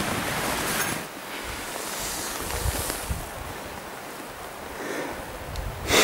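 Wind rushing over the microphone, louder in the first second and then gusting unevenly, with one short loud burst near the end.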